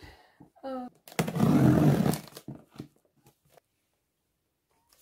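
Packing tape ripped off a cardboard shipping box and the flaps pulled open: a loud rough tearing noise lasting about a second, starting about a second in, followed by a few light knocks of cardboard.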